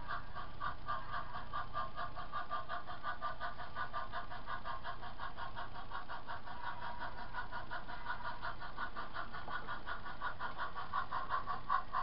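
HO-scale model locomotive running as it pushes a string of cars, a steady rapid pulsing buzz of about seven pulses a second.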